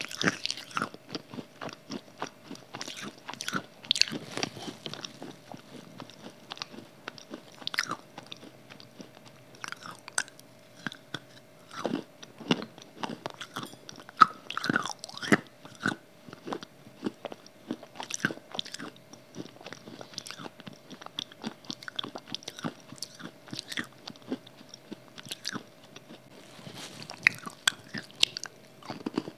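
Close-miked crunching and chewing of dry clay chunks: sharp, irregular bites and crunches in quick succession.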